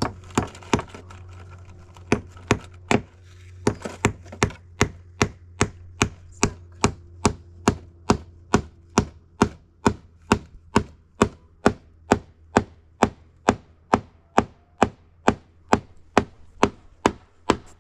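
Claw hammer striking nails into wooden planks: a few irregular blows, then an even run of about two and a half strikes a second.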